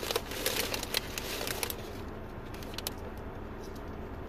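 Rustling and clicking handling noise close to the microphone for about the first second and a half, then quieter with a few scattered clicks over a low steady car-cabin hum.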